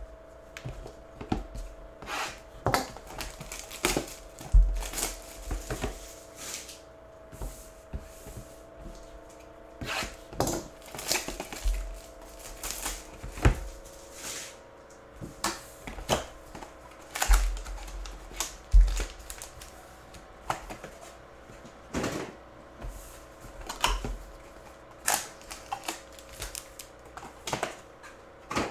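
Trading card hobby box and foil packs being opened and handled by hand: irregular clicks, taps and crinkles of cardboard and wrappers, with a few heavier thumps on the table. A faint steady hum runs underneath.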